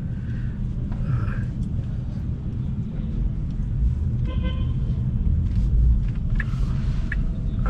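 Low, steady rumble of city traffic heard from inside a car's cabin, with a short vehicle-horn toot about four seconds in.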